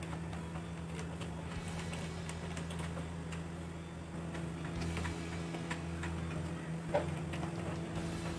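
A hand screwdriver turning screws through a metal folding bracket into plywood: scattered small clicks and ticks, with one sharper click about seven seconds in, over a steady low hum.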